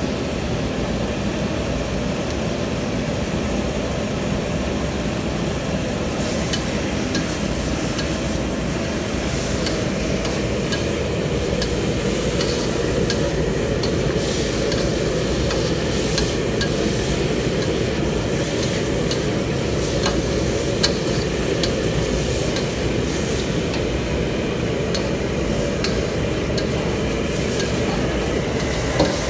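Metal spatula stirring and scraping chicken pieces and tomatoes around a steel wok as they fry, with scattered clicks of metal on metal and a light sizzle. A steady low rumble runs underneath.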